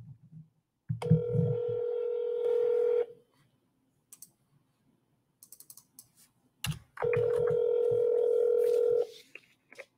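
Telephone ringback tone on an outgoing call, ringing twice with steady two-second rings about four seconds apart: the line is ringing and has not yet been answered. A few faint clicks come between the rings.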